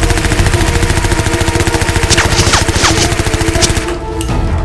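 Rapid automatic gunfire, a continuous burst that stops about four seconds in, with a few falling whistles in the middle and music underneath.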